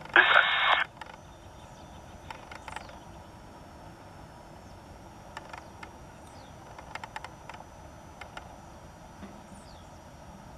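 A brief, loud burst of radio noise in the first second, cut off short, then a low steady hiss with scattered faint clicks and a thin high whistle.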